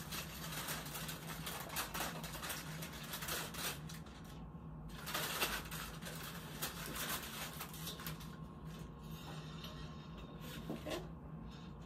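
Paper sterile wrapper of a catheter kit crinkling and rustling as it is unfolded by its corners, with short lulls about four seconds in and again near the nine-second mark.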